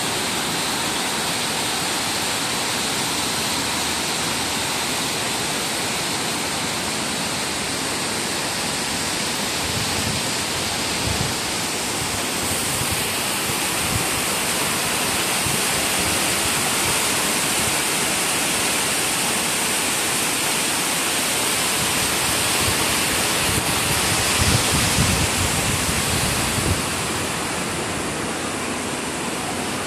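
Heavy tropical rain: a steady, dense hiss of a downpour beating on corrugated metal roofs and the wet yard. A few low thumps come through in the middle and again toward the end.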